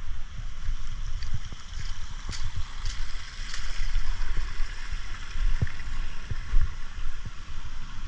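Wind buffeting a handheld camera's microphone in uneven gusts, over a steady high hiss, with a few soft thuds and clicks.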